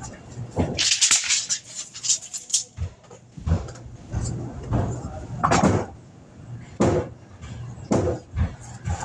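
Irregular knocks, clatter and scraping of lumber boards being handled, with a busy burst of clatter about a second in and single thumps spaced through the rest.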